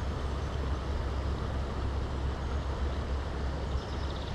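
Steady rushing and rumbling of water flowing through a dam, an unbroken noise with a heavy low rumble.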